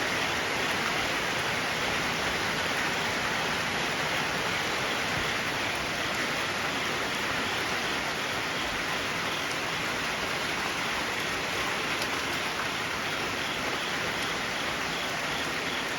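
Heavy rain falling steadily, a constant hiss with no breaks.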